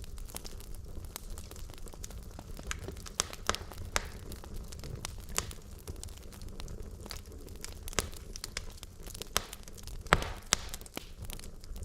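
Burning logs in a fireplace crackling, with irregular sharp pops and snaps over a low steady rumble; the loudest pop comes about ten seconds in.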